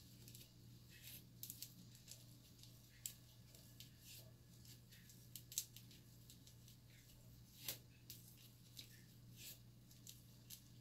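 Faint scattered clicks and short rustles of hands and long nails working through micro box braids, a few clicks standing out more sharply, over a low steady hum.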